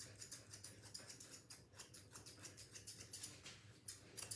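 Thinning scissors snipping a spaniel's coat at the front foot: a quick run of faint snips, several a second.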